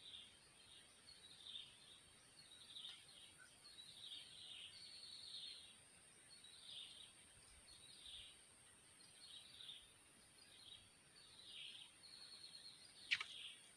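Faint outdoor ambience: a bird calls over and over in short chirps, about one every second, over a steady high-pitched thin whine. A single sharp click near the end.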